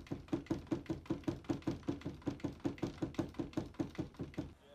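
A cat's paws patting rapidly against a bathroom mirror, a fast even run of knocks at about five a second that stops near the end.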